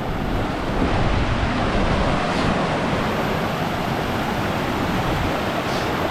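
Steady rush of a river running high, fast water pouring over rocks.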